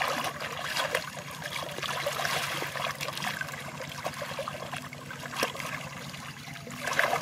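Muddy water splashing and sloshing as hands and knees churn through a shallow, flooded field pool, groping for fish by hand, with many small splashes and a louder patch near the end.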